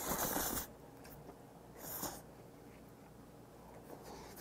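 Sauced ramen noodles slurped into the mouth in one pull of about half a second, then a second, shorter slurp about two seconds in.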